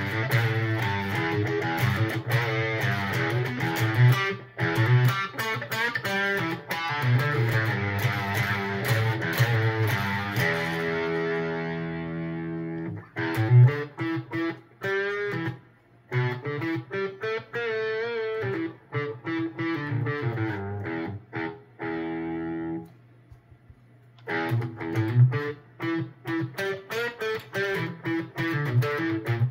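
Electric guitar played through a NativeAudio Fry Bread fuzz pedal, distorted: held notes and quicker runs of notes, with a short pause a little over twenty seconds in before the playing starts again.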